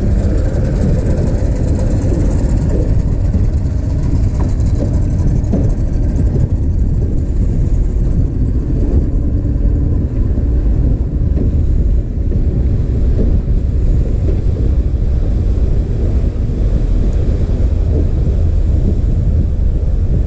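Steady low rumble of wind buffeting an open microphone over moving water, with faint small ticks scattered through it.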